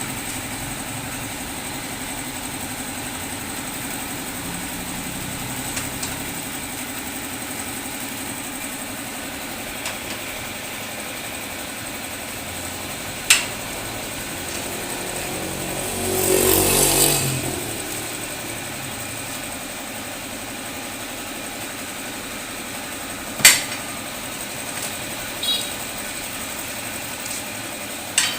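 An engine running steadily at idle, with two sharp clicks and one brief louder rushing swell about two-thirds of the way through.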